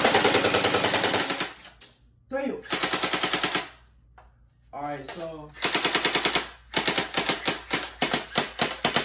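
GameFace Battlemaster electric AK-47 airsoft rifle firing full auto in stop-start bursts: a rapid burst at the start, another about three seconds in, a third past the middle, then quick shots fired more sparsely near the end. The stopping and restarting comes from the gun jamming up mid-string.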